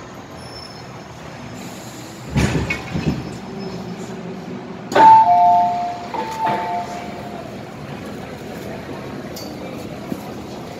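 MTR M-Train door opening at a station stop: a short rushing burst about two seconds in, then a sharp clunk and a two-note falling door chime heard twice as the doors open. A steady train hum runs underneath.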